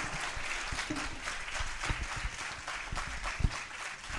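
Lecture audience applauding, many hands clapping steadily.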